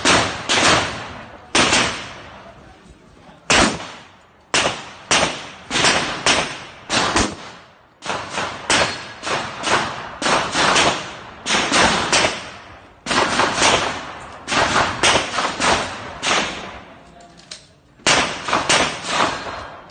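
Pistol shots fired in quick strings during a timed shooting stage, mostly about two shots a second, with short pauses between strings. Each shot is sharp and has a brief echo.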